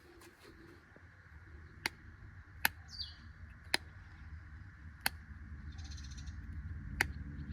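Quiet background with five sharp clicks spaced irregularly over several seconds, a brief high chirp about three seconds in, and a short hiss near the end.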